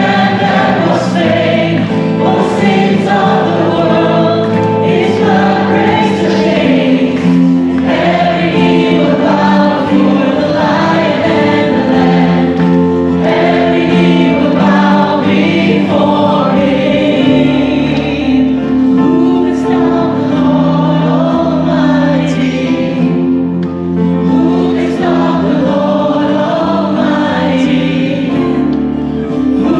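A choir singing Christian worship music over sustained accompanying chords.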